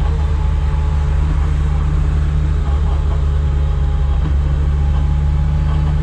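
Supercharged Chevrolet Chevette's four-cylinder engine and drivetrain running steadily at highway speed, heard from inside the cabin as a strong low drone under steady road noise.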